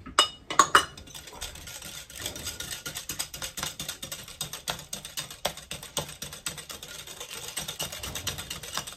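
Wire whisk beating an egg into butter and sugar in a glass bowl, its wires clicking rapidly and steadily against the glass. Two louder knocks come in the first second.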